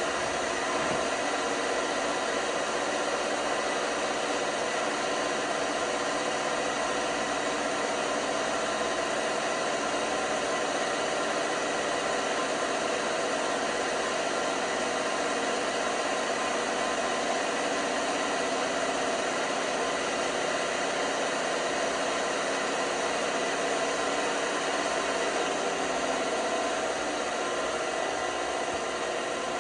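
LG washing machine running with a steady mechanical hum and whir.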